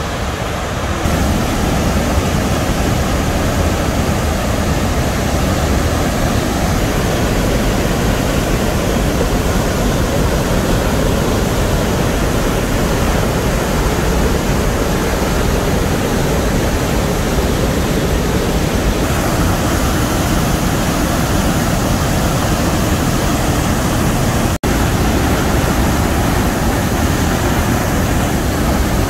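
Athabasca Falls, the glacial Athabasca River plunging over a rock lip, heard as a steady, loud rush of falling water. The sound cuts out for an instant once, near the end.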